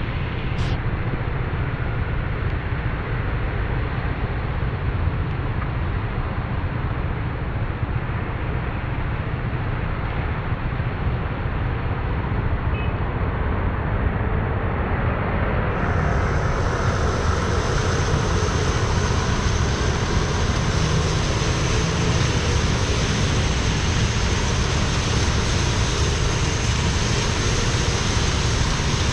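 Steady road noise of a car being driven: a constant low rumble with a hiss above it and no change in pace.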